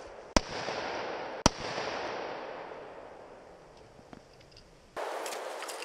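Two handgun shots about a second apart, each followed by a long echo that rolls off and slowly dies away.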